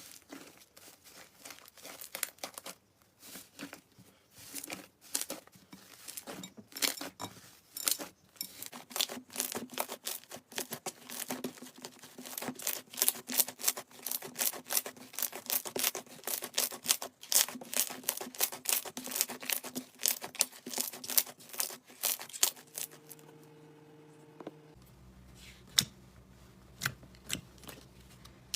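Slime being squished and stretched, giving rapid crackling and popping clicks. The clicks grow denser and louder about a third of the way in and stop about three-quarters through, after which a faint steady hum remains.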